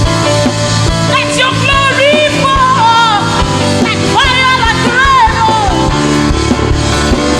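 Live gospel worship music: a high singing voice in long gliding phrases over steady band accompaniment.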